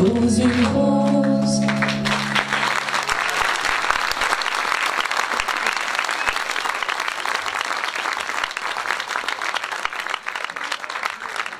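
A group of girls singing the final note of a song with guitar accompaniment, ending about two seconds in, then an audience applauding, fading slightly toward the end.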